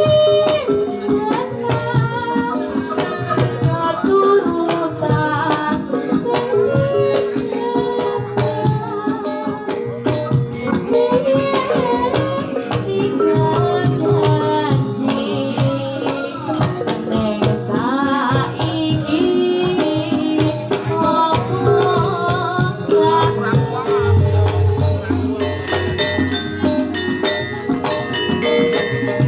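Javanese gamelan music: sustained metallophone tones over steady kendang hand-drum strokes, with a sinden's wavering singing line.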